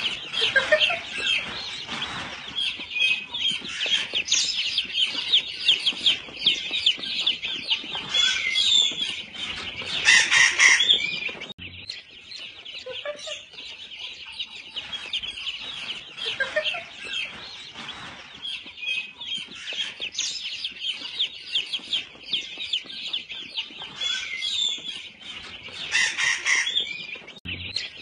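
A crowd of baby chickens peeping nonstop, many high chirps overlapping into a dense chorus, with a louder flurry of calls twice.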